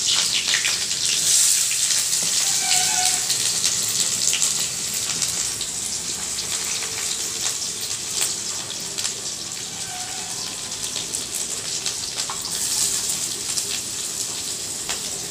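Hot oil sizzling and crackling in a pan as a tempering of mustard seeds and dried red chillies fries and splutters. The sizzle is a little louder in the first few seconds.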